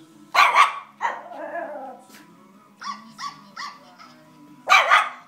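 Small long-haired dog barking excitedly in loud bursts, about half a second in and again near the end, with a few short high yips in between, set off by dog sounds played to it.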